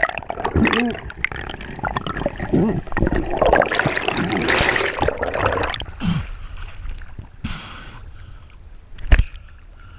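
Water churning and bubbling around an underwater action camera as a diver moves up through the water. About six seconds in the camera breaks the surface, and the sound drops to quieter water lapping, with one sharp knock or splash about nine seconds in.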